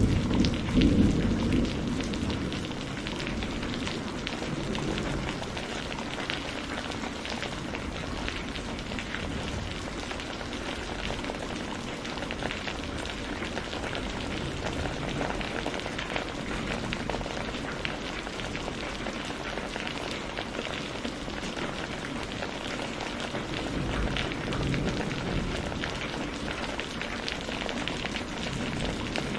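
Steady rain falling, with a dense spread of individual drop hits. A loud low rumble dies away over the first two seconds.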